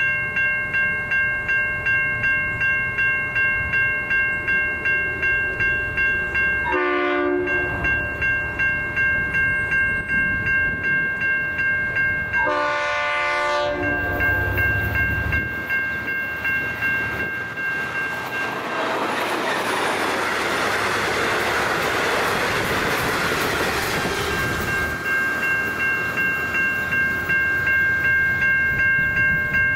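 Railway level-crossing bells ringing steadily, about two strokes a second. A train horn gives a short blast about seven seconds in and a longer one a few seconds later. A train then passes with a broad rushing noise of wheels on rail for about ten seconds, drowning the bells, which ring on after it has gone.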